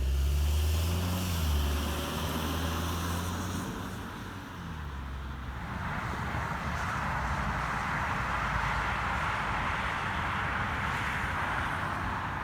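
Road traffic passing: a vehicle engine's low drone, its pitch shifting, over the first few seconds, then a steady rush of tyre noise.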